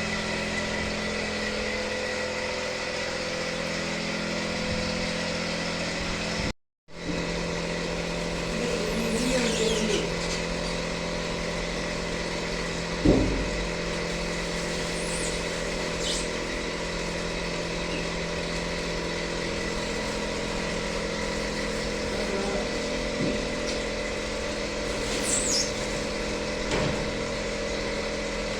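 Large lathe running with a steady motor and gearbox hum. The sound cuts out briefly about seven seconds in, and there is a single knock about halfway through.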